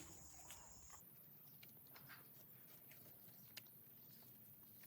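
Near silence: faint background tone with a few scattered soft clicks.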